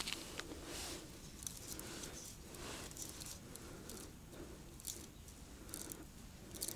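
Faint handling sounds of ice-fishing gear: soft rustles and a few light clicks as the line of a zherlitsa (winter tip-up) is paid out from its spool into an ice hole.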